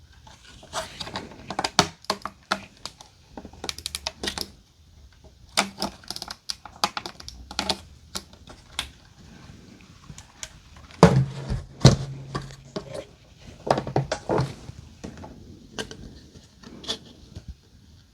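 Pieces of an organizer being handled and fitted together: irregular clicks, taps and knocks in quick clusters, with two louder knocks a little past the middle.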